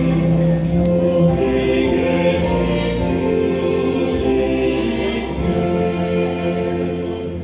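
Choir singing in long held chords.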